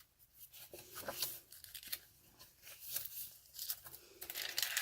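Paper pages of a handmade junk journal rustling and crinkling as they are handled and turned, in several short brushes with quiet gaps between, louder near the end.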